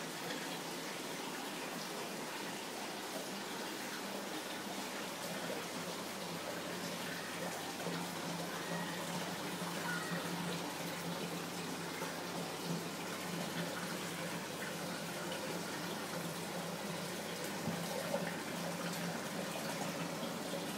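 Steady running and splashing water over a low, steady hum: an aquarium filter or pump running.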